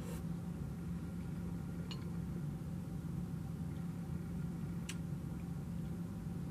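Steady low room hum, with three light clicks of a metal fork against the cake plate, the last and loudest near the end.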